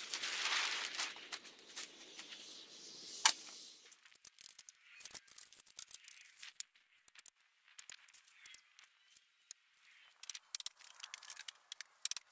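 Plastic house wrap rustling as the sheet is handled against the wall framing. About three seconds in there is a single sharp crack, and after that only scattered light clicks and taps as the wrap is pressed flat and fastened.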